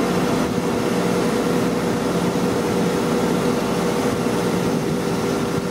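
Steady mechanical drone of running machinery: a constant hum with a couple of held tones and no distinct events.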